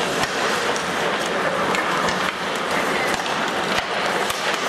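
Ice hockey in play: skates scraping the ice and a few sharp clacks of sticks and puck, over a steady murmur of the arena.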